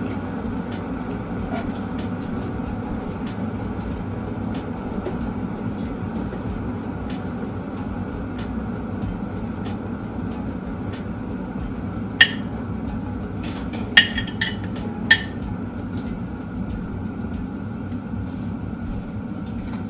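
A steady low hum with several sharp clinks of dishes or utensils, four of them bunched about two-thirds of the way through.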